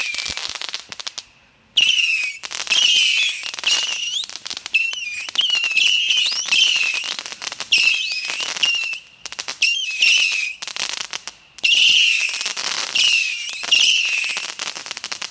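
A 100-shot missile firework cake firing in quick succession: a stream of whistling missiles with crackling pops, with brief breaks about a second and a half in and again about eleven seconds in.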